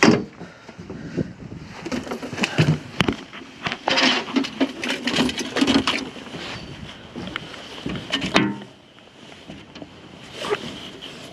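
Irregular knocks, clicks and scuffing as a freshly landed flathead and fishing gear are handled. The sounds are busiest in the middle and fall quieter after a last sharp knock near the end.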